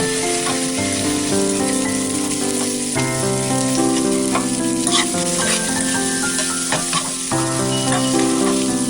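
Food sizzling and frying in a hot pan, with a few sharp clicks of a utensil against the pan around the middle.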